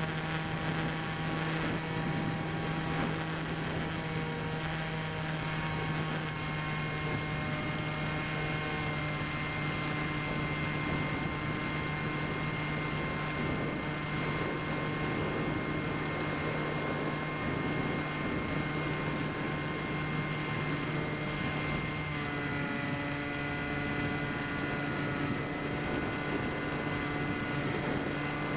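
Bixler RC plane's electric pusher motor running steadily in flight, heard from on board as a constant hum-like whine over rushing air. Its pitch steps slightly lower about three-quarters of the way in as the throttle eases.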